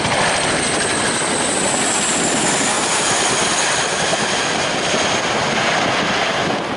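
Boeing CH-47 Chinook tandem-rotor helicopter flying low: fast rotor beat under a high turbine whine that falls slightly in pitch.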